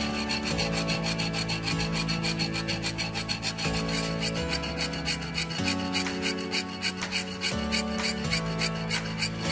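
Background music: sustained chords that change every couple of seconds over a fast, even, high ticking beat.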